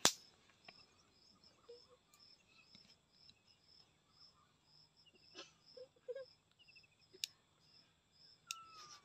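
Very quiet outdoor ambience: a cricket chirping faintly and evenly, about two to three short high chirps a second, with one sharp click at the very start and a few faint scattered ticks later.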